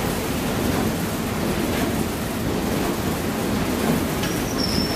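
Steady rumbling roar from the wood-fired boiler of a paddle steamer, its firebox open while a log is pushed in. Near the end, a brief high metallic squeal as the iron firebox door swings shut, then a click as it closes.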